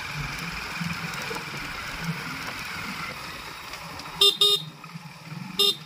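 Steady running noise of a vehicle on the road, then a vehicle horn beeps three short times: twice in quick succession about four seconds in, and once more near the end.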